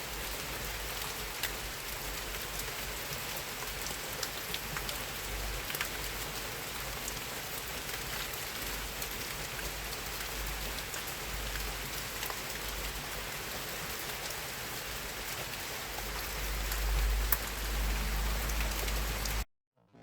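Steady rain falling, with scattered single drop ticks over an even hiss and a low rumble that swells near the end. The rain cuts off suddenly just before the end.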